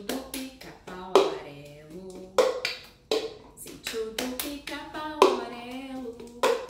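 Cup rhythm: hand claps and a plastic cup being knocked down on a granite countertop in a steady repeating beat, with a woman singing a melody over it.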